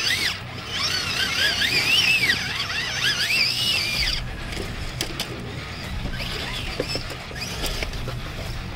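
Electric motor and gears of an RC trail truck whining, the pitch rising and falling in short swells with the throttle over a steady high whine; the whine stops about four seconds in, leaving a few light clicks.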